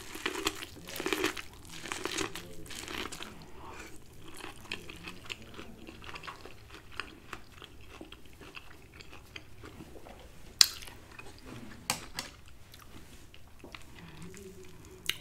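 Close-up biting into corn on the cob and chewing it, with a run of crunchy bites in the first few seconds, then quieter chewing and a few sharp clicks.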